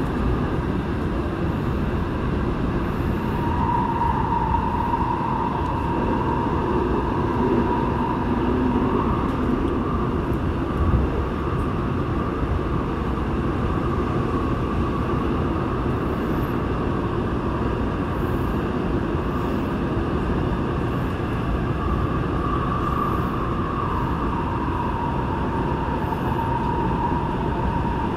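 Seoul Subway Line 8 train running through a tunnel: a steady rumble of wheels on rail, with an electric traction-motor whine that rises slightly in pitch about nine seconds in and drops back near the end.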